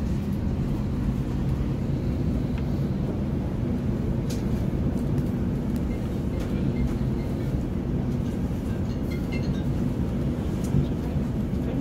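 Steady rumble of a moving train, heard from on board, with a few faint rattles.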